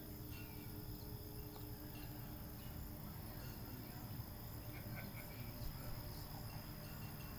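Night-time crickets chirping as a steady high-pitched chorus, over a low, even background rumble.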